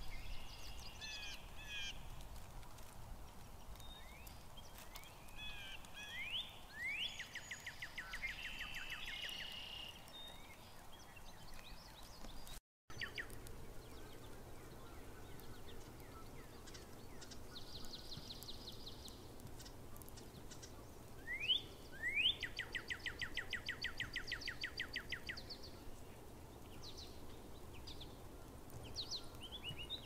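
Forest songbirds singing over a steady low background hum of the woods; twice a song opens with a quick rising note and runs into a fast, even trill, and other short chirps and trills come between. The sound cuts out for an instant a little before the middle.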